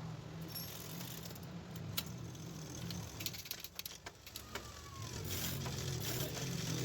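Light metallic clicks and jangling, clustered in the middle, over a steady low hum.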